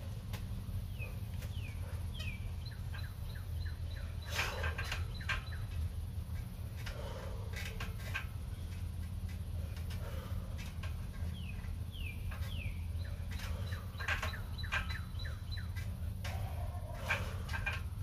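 A bird singing a phrase of quick falling chirps and a held high whistle, twice about ten seconds apart. Under it runs a steady low hum, with scattered short knocks and rustles.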